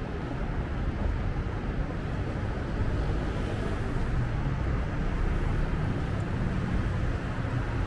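Steady rumble of road traffic on a busy city street, a low even drone of passing cars and heavier vehicles.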